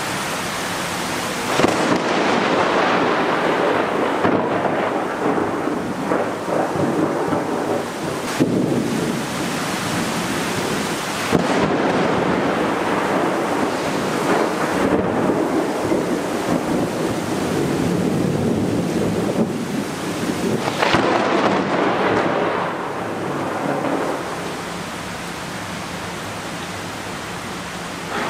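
Heavy rain pouring steadily through a thunderstorm, with several sudden claps of close thunder, about two, eleven and twenty-one seconds in. Each clap trails off into a long rumble.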